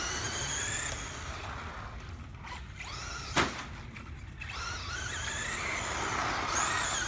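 Traxxas Slash RC truck's Velineon brushless motor whining as it speeds up and slows down, the pitch rising and falling, with a sharp knock about three and a half seconds in. The motor pulls without the cyclic stumble that the faulty ESC caused, now that the ESC has been swapped.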